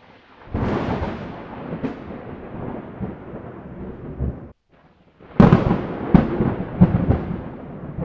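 Logo-intro sound effects: two sudden heavy hits, each trailing off into a thunder-like rumble, the first about half a second in and the second about five seconds in after a short silent gap.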